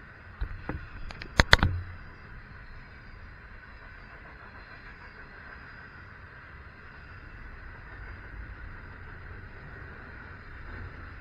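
Double-stack container well cars of a Norfolk Southern intermodal freight train rolling past, with a steady rumble of steel wheels on the rails. About half a second in comes a quick run of sharp clanks, the loudest at around a second and a half.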